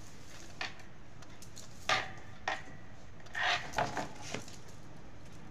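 Tarot cards being laid down on a tabletop and the deck handled: a handful of short taps, slides and rustles, the louder ones about two and three and a half seconds in.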